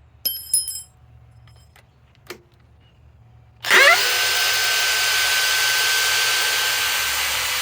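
A few sharp clicks, then a DeWalt DCD805 brushless cordless drill on its low-speed setting (speed 1), powered by a Milwaukee Forge battery through an adapter, spins up with a rising whine about three and a half seconds in and runs steadily without cutting out.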